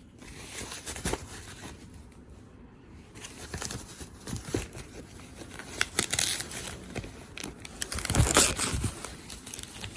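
Packaging being crinkled and torn open by hand, irregular crackling with louder tearing bursts about six seconds in and again around eight seconds.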